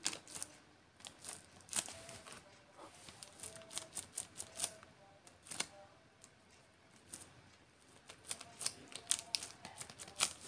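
Irregular sharp clicks of a handheld TV remote control's buttons being pressed, several a second in places with short pauses between.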